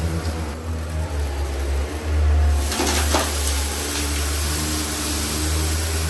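Shark PowerDetect Pet upright vacuum running steadily as it is pushed over carpet, picking up scattered dust and debris. There is a brief rattle about three seconds in.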